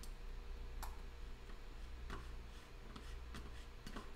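Several faint, scattered computer clicks from mouse and keys over a low steady hum.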